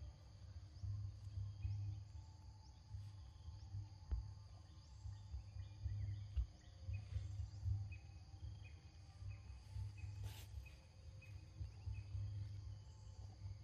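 Forest insects buzzing steadily, with short chirps repeating over and over, above an uneven low rumble. A single sharp click sounds about ten seconds in.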